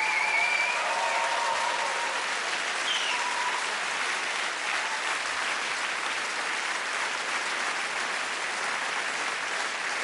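Concert audience applauding steadily, with a few short whistles in the first three seconds.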